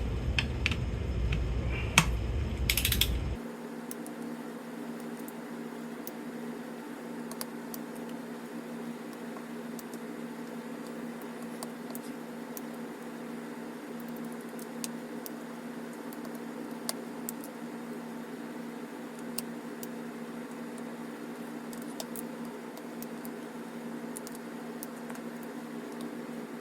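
Ratchet-type torque wrench clicking sporadically as bolts are tightened one after another in a crisscross pattern. A louder background rush cuts off suddenly about three seconds in, leaving a steady low hum under the clicks.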